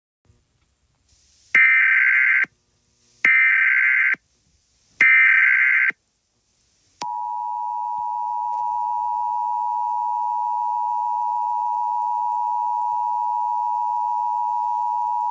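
Emergency Alert System tones: three short bursts of SAME header data, each about a second long, followed by the steady two-tone EAS attention signal, held for about eight seconds.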